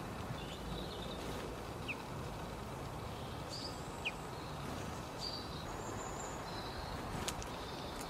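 Small garden birds giving short high chirps and calls every second or so over a steady low background noise outdoors.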